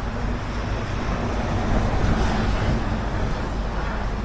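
Strong wind rushing over and buffeting the microphone, with a steady low rumble and a faint hum underneath.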